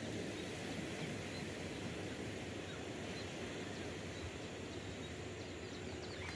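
Steady low rumble of wind on the microphone, with a few faint, brief bird chirps.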